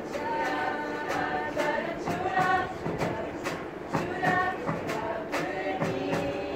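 Women's tuna choir singing together in several voices, with a drum keeping a steady beat under the voices.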